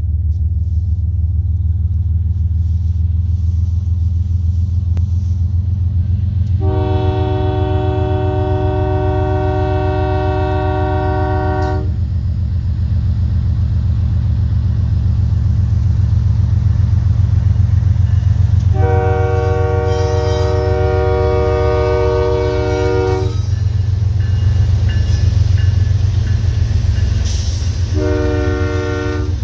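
Freight train's diesel locomotive air horn sounding a multi-note chord in two long blasts and then a short one, over the steady low rumble of the approaching diesel locomotives.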